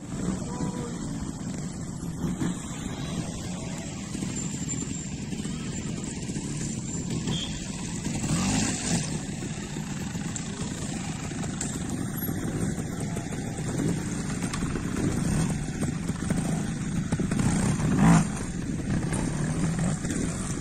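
Trials motorcycle engine running at low revs with short bursts of throttle, the sharpest one near the end.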